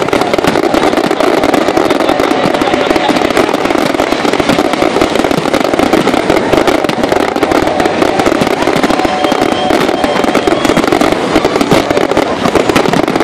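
Aerial fireworks bursting in a rapid, unbroken barrage, many shells going off at once in a continuous din of bangs and crackle.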